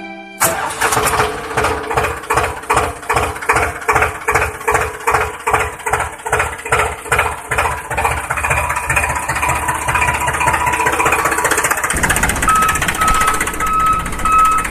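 Diesel tractor engine chugging with slow, even beats about twice a second. Near the end it settles into a steadier run and a repeating high beep starts.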